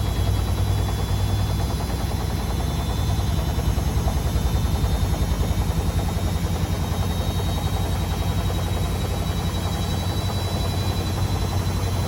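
Beko WMD 46160 washing machine running a 90 °C boil-wash cycle: a steady low hum with a faint high whine that slowly rises in pitch.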